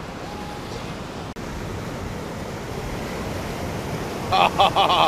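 Steady wash of surf breaking on a sandy beach. A person's voice calls out briefly near the end and is the loudest sound.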